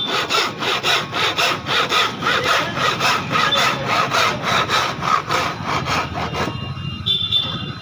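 Saw blade cutting through wood in quick, regular back-and-forth strokes, about three to four a second, stopping about six and a half seconds in.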